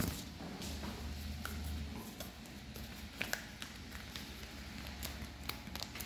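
Handling noise from a handheld camera carried through glass entrance doors: scattered light clicks and taps, with a sharp knock at the very start and a low hum that comes and goes.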